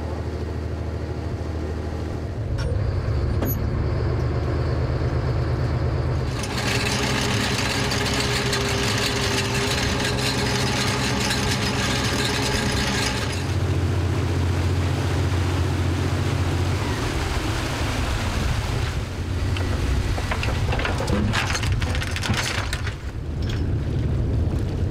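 A trawler's engine and its deck trawl winch running as the steel warps are wound in to haul the trawl, with a steady low hum throughout. A loud hiss runs for about seven seconds in the middle, and metal clanks come near the end.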